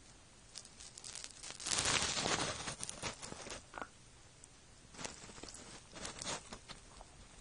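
Rabbit nosing and gnawing at a food-stuffed red rubber Kong toy, pushing it over the floor: irregular scratchy rustling and scraping with scattered sharp clicks. The loudest stretch is a dense rustle about two seconds in.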